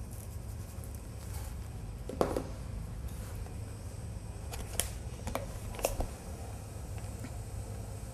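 A few light clicks and taps from handling a plastic spice shaker while seasoning the meat: one dull knock about two seconds in, then three sharper clicks between about five and six seconds in, over a steady low hum.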